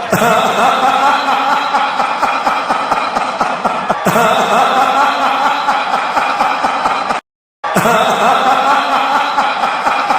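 A laughing sound effect played on a loop, restarting about every four seconds, with a brief cut-out just after the middle.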